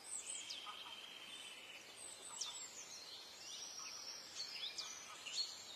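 Faint bird calls: a buzzy trill near the start, then scattered chirps and short falling whistles.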